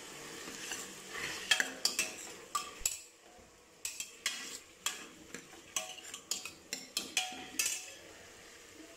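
Steel ladle stirring chopped tomatoes and onions in a metal pressure cooker, clinking and scraping against the pan in a run of irregular knocks, with a short lull about three seconds in.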